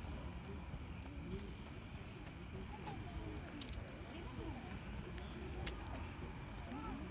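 Outdoor night ambience: insects trilling steadily in a high, pulsing chorus, with faint distant voices of people walking on the path and a low background rumble.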